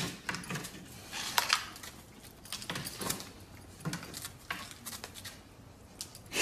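Scattered light clicks and knocks, a few a second at irregular intervals, from a golden retriever at a doorway holding a long stick crosswise in its mouth.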